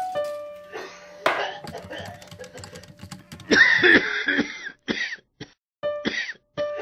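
A person coughing in several harsh bursts, the longest and loudest about three and a half seconds in, over light background music.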